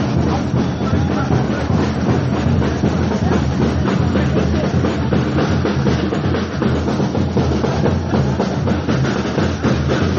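Samba bateria (drum section) playing a steady samba beat: deep bass drums under a dense, fast rattle of snares and small percussion.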